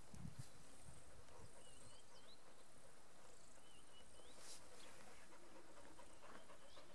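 Quiet open-air ambience with a small bird calling: short chirping phrases, each ending in an upward slide, repeated several times.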